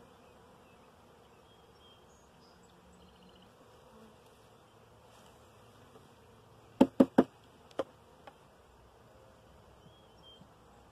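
Honeybees buzzing faintly around an open hive. About two-thirds of the way through come three quick, sharp wooden knocks, then a fourth a moment later, as a frame is knocked against the wooden hive box.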